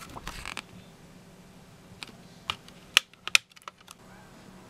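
A brief paper rustle as a page of the CD booklet is turned, then a few sharp plastic clicks, the loudest a little after three seconds in, as the disc is unclipped from the digipak tray's centre hub.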